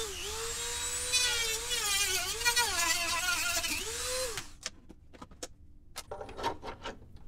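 Dremel rotary tool running at high speed, its pitch wavering up and down, then switched off about four seconds in and winding down. A few light clicks and knocks follow.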